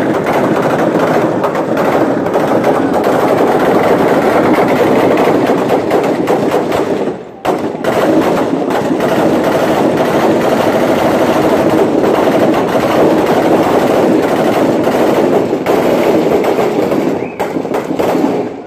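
Sustained automatic gunfire: dense, nearly unbroken rapid shots, with a short pause about seven seconds in and a few brief gaps near the end.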